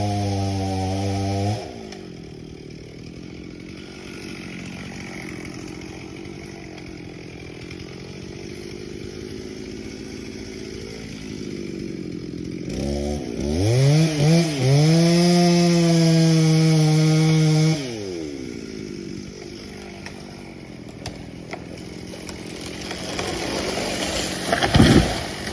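Stihl chainsaw at high revs, dropping to idle after about a second and a half. Around the middle it is revved hard again for about five seconds, the pitch wavering under load as it cuts, then it settles back to idle. A sharp loud thump comes near the end.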